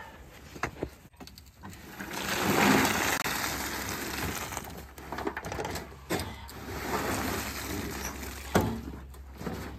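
Lumps of charcoal biochar pouring out of a tipped wheelbarrow onto a canvas cloth: a rushing clatter of brittle pieces tumbling and scattering, swelling about two seconds in, then going on more quietly with scattered sharp clicks.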